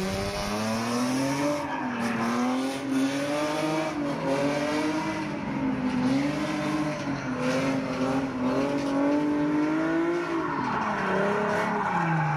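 A drift car's engine revving high and held near the limiter, its pitch rising and dipping every second or two as the throttle is worked through the slide. Tyres squeal underneath.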